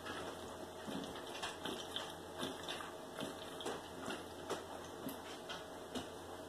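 A man chugging soda from a can, gulping in quick swallows about twice a second, faint and steady.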